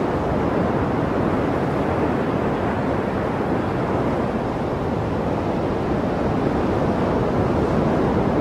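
Steady rush of ocean surf breaking on coastal rocks.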